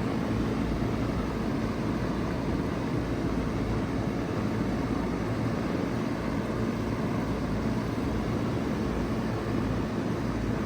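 Bard two-ton wall-hung heat pump running steadily in cooling mode: a low, even hum under the steady rush of its fan.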